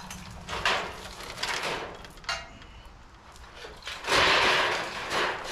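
Knocks and scrapes of junk being moved about in the back of a box truck, a few short ones early and then a longer, louder scraping about four seconds in.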